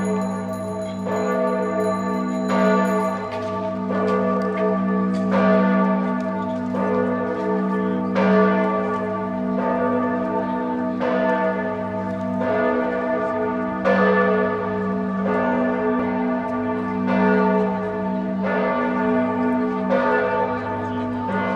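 Church bells of Giotto's Campanile, the bell tower of Florence Cathedral, pealing: several bells strike unevenly about once a second. Their ringing tones overlap over a deep, lingering hum.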